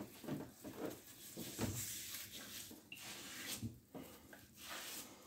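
Faint, scattered light knocks and rustles of handling at a bathroom sink, with the tap turned off.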